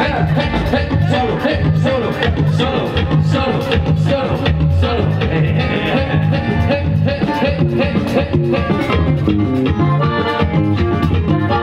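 Live band with accordion, guitar, bass and drums playing a Latin dance number through a PA, with a steady beat and a repeating bass line.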